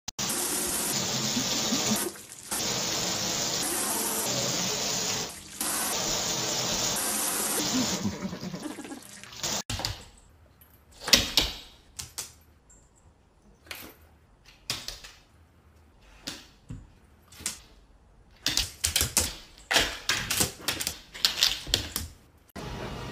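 Shower spray running steadily, breaking off briefly twice. After it cuts off, a scatter of short, sharp, separate sounds follows, the loudest coming soon after.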